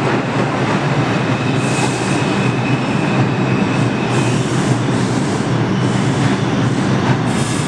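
New York City subway 5 train pulling out of the station and running away down the track: a steady, loud rush of wheel and motor noise. A thin high whine comes in for a couple of seconds, and short hissy surges sound a few times.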